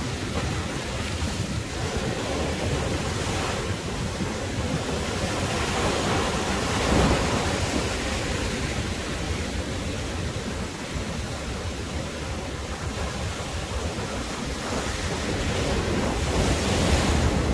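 Sea waves breaking and washing onto a sandy beach, with wind buffeting the microphone. The surf swells louder about seven seconds in and again near the end.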